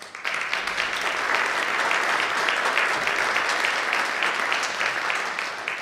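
Audience applauding, a dense patter of many hands clapping that starts all at once and thins out near the end.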